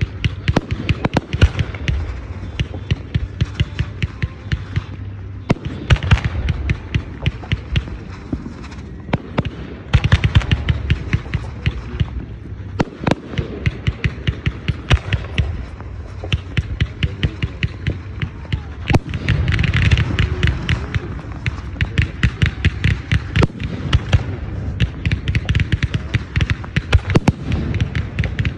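Aerial fireworks bursting in a dense, continuous barrage of sharp bangs and crackles, many per second. Heavier booming comes in suddenly about ten seconds in and again around twenty seconds.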